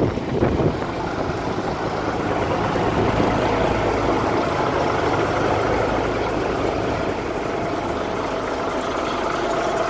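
Kenworth W900 heavy truck's diesel engine idling steadily.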